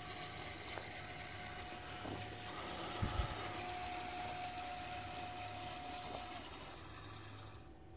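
Meade LXD 750 German equatorial mount's drive motors whirring steadily as the mount slews on its own to the next alignment star, stopping shortly before the end. A power inverter hums underneath, and there is a brief low bump about three seconds in.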